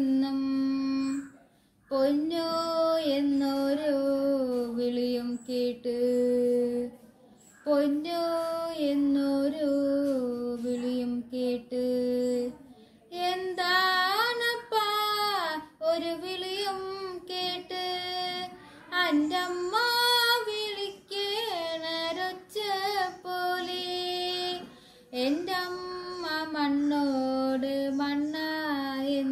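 A girl singing a Malayalam folk song (nadanpattu) solo with no instruments, in long held, bending phrases with short breaths between them.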